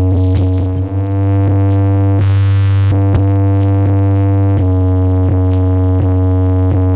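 Loud electronic dance music played through a stacked miniature sound system of subwoofer boxes and speaker cabinets. It has a heavy sustained bass note, a held synth chord and a drum-machine beat about twice a second.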